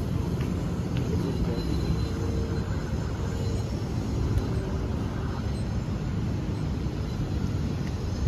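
Steady low rumble of distant city traffic, with wind on the microphone.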